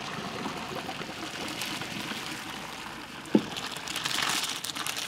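Boiling pasta water and fettuccine poured from a stainless steel stockpot into a colander in the sink: a steady splashing rush of water. There is a single short knock a little past three seconds in, and the splashing grows louder near the end as the pasta slides out.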